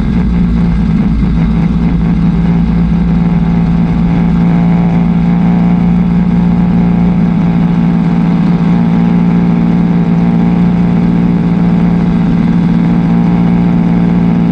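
Pro 4 dirt-track race car's four-cylinder engine running steadily at low revs, heard from inside the cockpit, with one strong unchanging drone and no revving.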